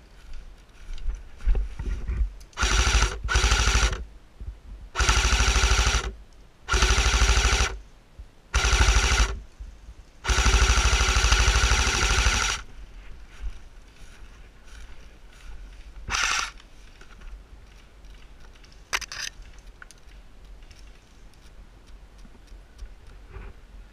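Airsoft electric guns firing full-auto bursts: six long bursts in quick succession, the last about two seconds long. A shorter burst follows a few seconds later, then a faint one.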